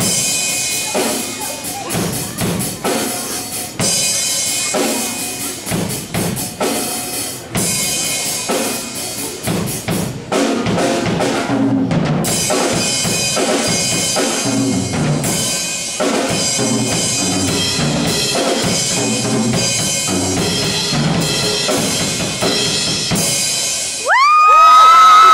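DW drum kit played in a steady beat: bass drum, snare and cymbal strikes. Near the end the audience breaks into loud, high-pitched cheering and screams.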